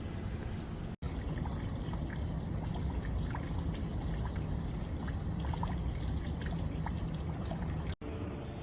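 Water trickling steadily with small scattered drip-like ticks, breaking off for an instant about a second in and again near the end.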